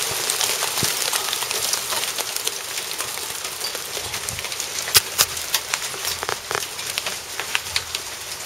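Hail falling with heavy rain onto concrete paving: a dense hiss of rain full of sharp ticks from hailstones striking, with a few louder clicks about five seconds in.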